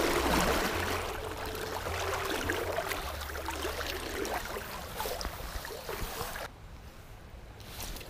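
Creek current rushing and splashing around a wader's legs, a steady noisy wash that drops away suddenly about six and a half seconds in.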